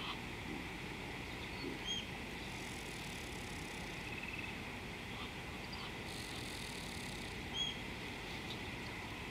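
Bush ambience: a steady low background rush with scattered bird calls. A short hooked chirp comes about two seconds in and again later on, the loudest sound, with a brief trill in between.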